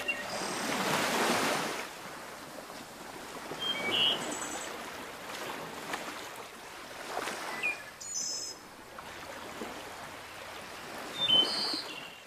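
Sea waves washing in, the surf swelling and falling several times, with a few brief high-pitched chirps over it.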